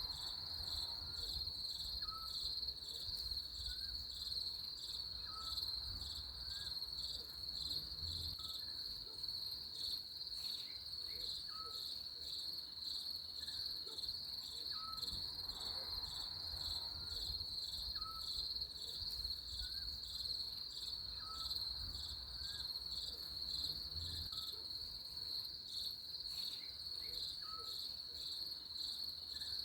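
Insects chirping in a steady, high-pitched, pulsing chorus, with a short, lower note repeating about once a second.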